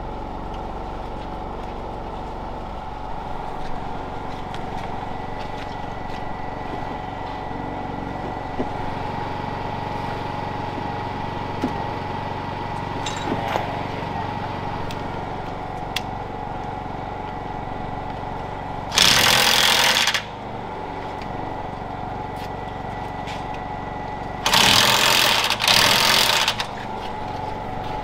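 Cordless impact wrench hammering in short bursts, once about two-thirds of the way through and again twice in quick succession near the end, running down the locking nuts on the manure auger's bolted joint. A steady machine hum and a few light tool clicks lie underneath.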